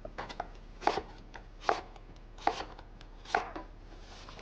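Knife chopping vegetables on a cutting board: a sharp chop about every second, with lighter taps in between.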